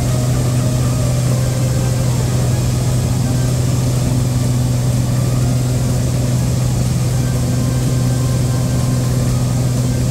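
Light airplane's engine and propeller running steadily in flight: a constant low hum with a steady hiss above it.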